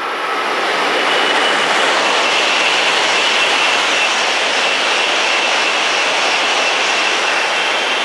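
Coupled E3-2000 and E2-1000 Shinkansen trainsets passing close at high speed: a loud, steady rush of air and wheels on rail with a thin high whine over it, easing off near the end as the tail goes by.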